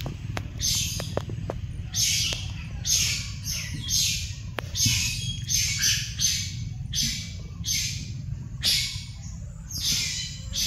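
Short bird calls repeating about once or twice a second, over a steady low rumble.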